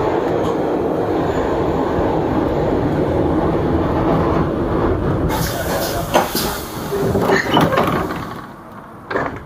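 Old wood-bodied tram running on its rails with a steady rumble, then, about five seconds in, a burst of hiss and several clanks and knocks as it slows to a stop, after which it goes much quieter; one more sharp clunk comes near the end.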